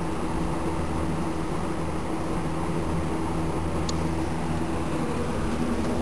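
Vintage Lakewood K-223 box fan running steadily on medium speed: an even rush of air from the blades over a steady low motor hum.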